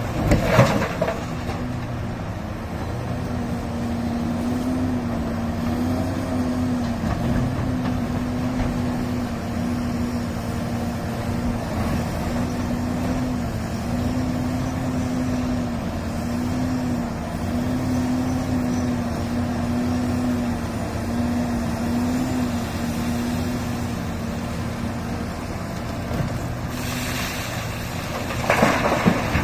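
Diesel engine of a large Komatsu hydraulic mining excavator running under load, a steady drone whose pitch rises and dips slightly as the machine works. In the first second and again about two seconds before the end, a bucketload of broken rock crashes down into the steel bed of a Cat 773E dump truck.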